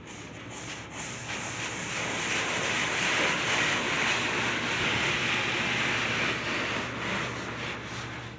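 Water jets of an automatic car wash spraying onto the car, heard from inside the cabin as a hiss that swells from about a second in, holds loud through the middle and fades near the end as the spray passes over.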